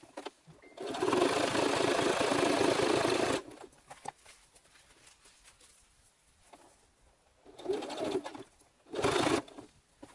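Brother electric sewing machine stitching a seam in leather glove pieces: one steady run of about two and a half seconds starting about a second in, then after a pause, two short bursts near the end.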